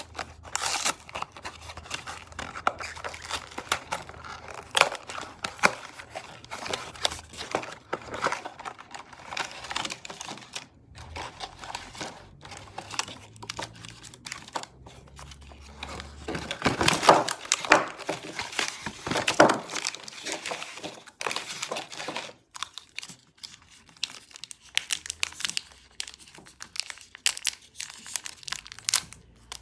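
Snack packaging handled by hand: a cardboard box and its paper liner being opened, then the red metallised plastic wrappers of the individual chocolate sticks crinkling and being torn open. The crinkling is busiest and loudest a little past halfway, eases off briefly, then picks up again as a wrapper is torn.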